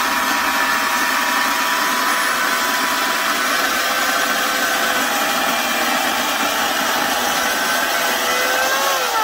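Homelite 12-amp corded electric chainsaw cutting through a hardwood log, its motor and chain running at a steady pitch without bogging down under the load. Near the end the pitch rises briefly and then falls off as the motor winds down.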